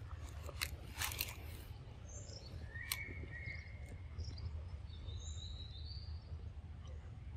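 Outdoor ambience: a steady low rumble, a few sharp clicks in the first three seconds, and faint bird calls, short high whistled notes between about two and six seconds in.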